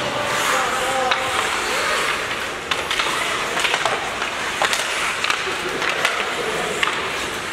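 Ice hockey game in play: skates scraping on the ice and scattered sharp clacks of sticks and puck, over a steady din of spectator voices.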